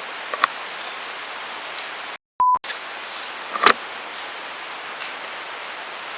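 Steady hiss with a sharp click about half a second in, a short high beep in a moment of dead silence a little after two seconds, and a louder sharp knock a little before four seconds.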